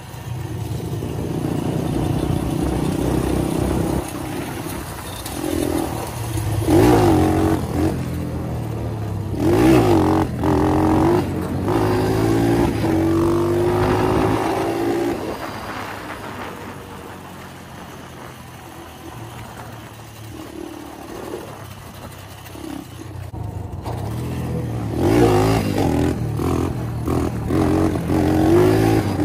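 Syx Moto 125cc pit bike's single-cylinder four-stroke engine under the rider, revving up and down through the gears, its pitch climbing and dropping repeatedly. It eases off to a lower, quieter drone in the middle, then revs hard again near the end.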